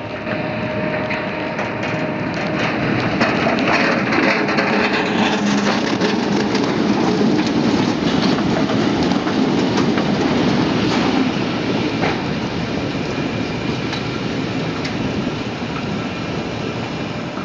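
A load of sugar beets sliding out of the tailgate of a truck tipped steeply on a hydraulic tipping platform and pouring into a pit: a dense, continuous clatter of many small knocks. It swells about three seconds in and eases off in the second half.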